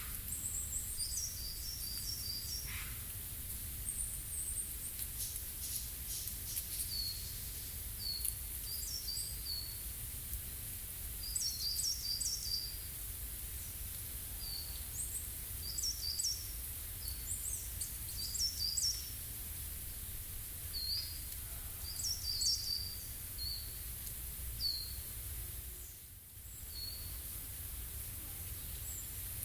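Forest ambience with a songbird repeating short phrases of quick, high, descending notes every second or two, over a steady background hiss and low rumble.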